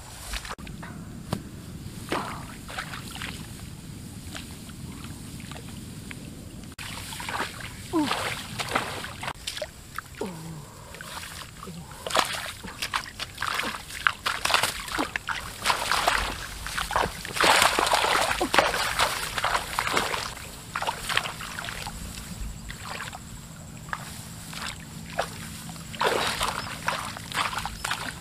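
Shallow paddy water splashing and sloshing in short, irregular bursts as hands grope through the flooded rice plants, busiest in the middle stretch.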